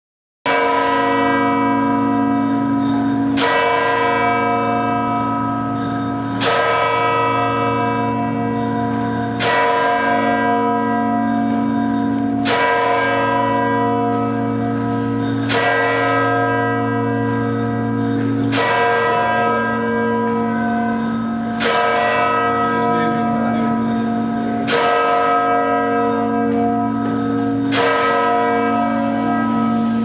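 Large church bell in the Messina Cathedral belfry, heard up close, tolling slowly: about ten strokes, one about every three seconds, each ringing on with a long hum that carries into the next stroke.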